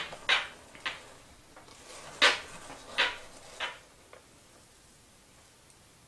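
A metal icing spatula scraping through buttercream and knocking against a stainless steel bowl and the cake. It makes about seven short scrapes and clinks in the first four seconds, the loudest a little over two seconds in, and then goes quiet.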